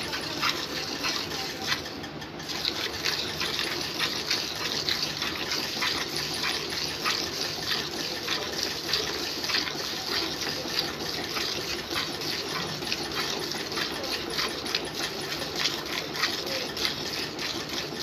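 Milk squirting by hand from a cow's teats into a steel bucket partly full of milk: short hissing streams in a quick, even rhythm, one stroke after another.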